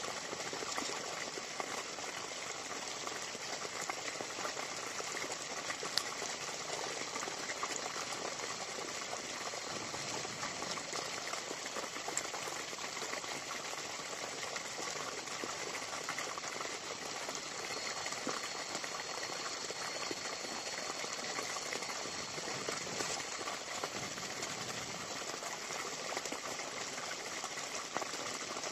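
Steady bubbling, rushing water noise with no breaks, with a single sharp click about six seconds in.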